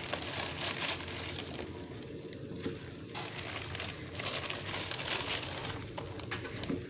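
Instant noodle blocks going into a pot of boiling water: irregular crackling, crinkling and sizzling as the noodles start to boil.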